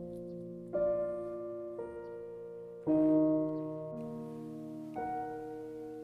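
Slow piano background music, a new chord struck about once a second and left ringing.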